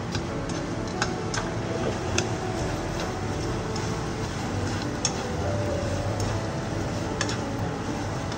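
Wooden chopsticks stirring and tossing shredded dried squid in a nonstick frying pan, clicking and tapping against the pan at irregular intervals over a steady low hum.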